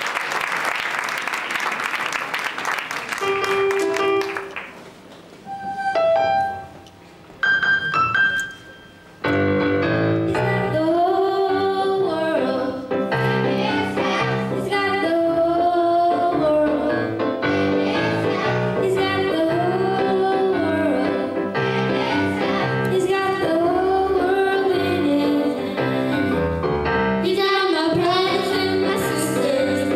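Applause dies away, then a few separate keyboard notes sound with pauses between them. From about nine seconds in, a song with keyboard accompaniment and a steady bass line begins, with a girl singing into a microphone.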